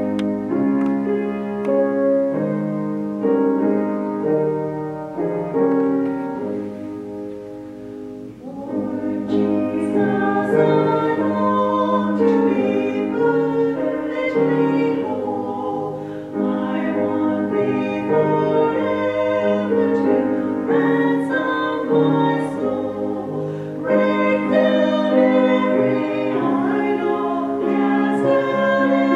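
Two women singing a sacred duet to keyboard accompaniment. The keyboard plays sustained chords alone for about the first eight seconds before the voices come in.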